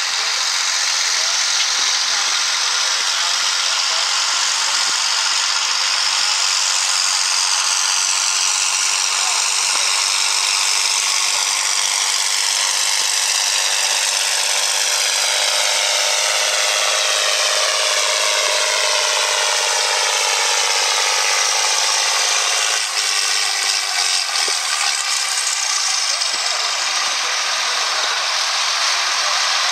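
John Deere 4440's turbocharged six-cylinder diesel running hard as the tractor pulls a weight-transfer sled, its pitch sinking slowly through the run as the sled load builds and the engine lugs down. About three quarters of the way through the sound dips and changes as the pull ends and the engine eases off.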